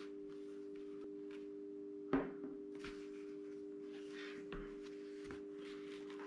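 Motocross helmet being handled and turned over on a wooden table: one sharp knock about two seconds in and a lighter one later, with faint rustling of the goggle strap, over a steady hum.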